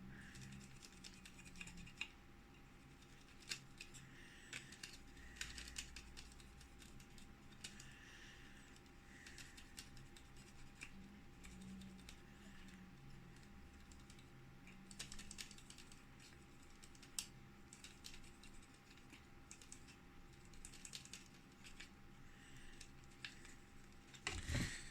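Near silence with faint, scattered small clicks and light rubbing: a cotton swab and fingers working over a graphics card's plastic fan blades.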